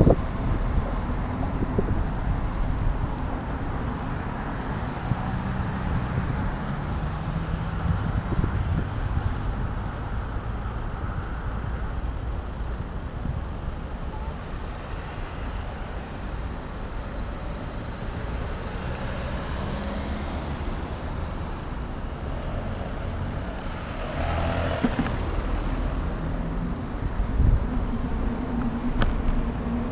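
Street traffic on a city street: a steady mix of car and heavier vehicle engines and tyre noise, with a low rumble throughout. A vehicle passes more loudly near the end.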